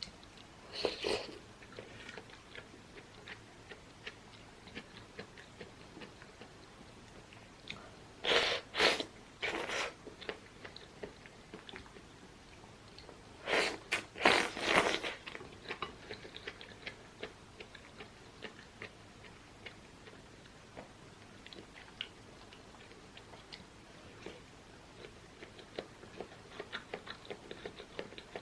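Close-miked eating: chewing and wet mouth clicks. Three louder groups of bursts stand out, about a second in, around eight to ten seconds, and around fourteen seconds.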